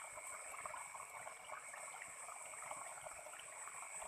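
Night insects trilling steadily in a continuous high tone, over faint trickling and crackling of water.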